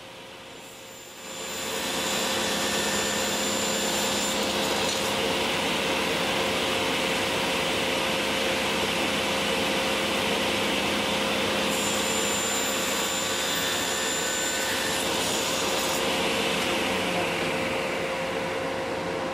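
Table saw with a 10-inch AlumiCut non-ferrous blade ripping a strip of 6061 aluminum plate. Under a steady motor hum the blade's loud, steady cutting noise comes in about a second in and holds, with a high whistle-like tone coming and going, then eases off near the end.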